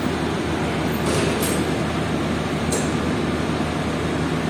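Steady low machine hum, with a few faint metallic clinks of loose steel brake parts about a second in, again shortly after, and near three seconds.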